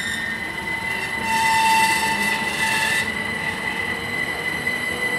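Two coupled Class 387 electric multiple units pulling out of a station, running with a steady high whine. About a second in, a louder rushing hiss and an extra tone join for about two seconds, then ease off.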